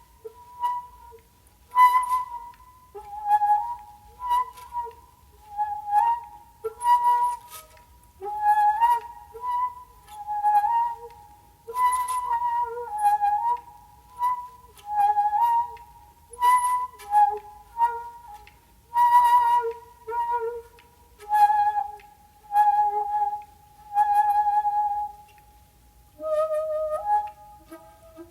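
Solo shakuhachi (Japanese end-blown bamboo flute) playing many short, breathy phrases that waver back and forth between two neighbouring notes, with pauses between them. Near the end the line moves to a lower note and then a higher one.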